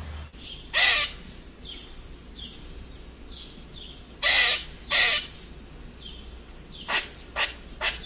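Great argus pheasant giving loud, harsh calls: one about a second in, two longer ones close together around the middle, and three short ones near the end. Faint chirps of other birds sound between them.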